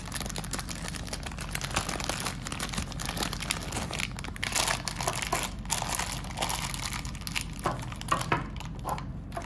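Thin clear plastic bag crinkling and rustling as it is handled, pulled open and crumpled by hand, with a continuous run of irregular crackles.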